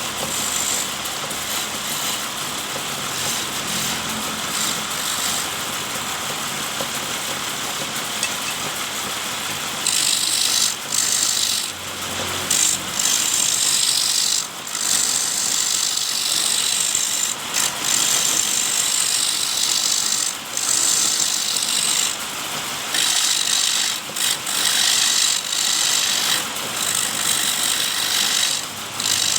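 Homemade wood lathe driven by an electric motor, running with a steady whir; about ten seconds in a cutting tool starts scraping the spinning wood in repeated passes of a few seconds each, with short breaks between them.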